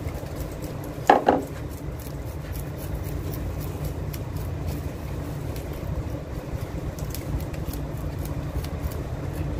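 Knife cutting and scraping through a large tuna on a wooden board: scattered light clicks and rubbing over a steady low rumble, with one brief louder sound about a second in.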